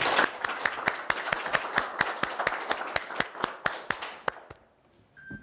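A small audience clapping, the separate claps distinct, dying away about four and a half seconds in.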